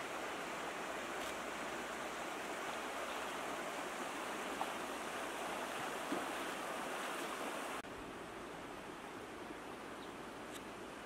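Fast-flowing muddy floodwater rushing in a steady rush. It cuts off abruptly about eight seconds in, giving way to a quieter steady hiss.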